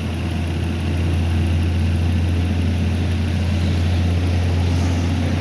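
Car engine idling steadily, an even low hum; the engine is kept running so the A/C compressor turns while refrigerant is added.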